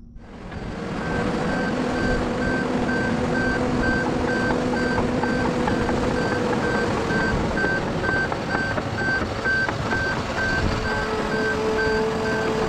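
John Deere 750L crawler dozer running, its diesel engine and tracks working steadily, with its reversing alarm giving evenly spaced beeps, a little over two a second.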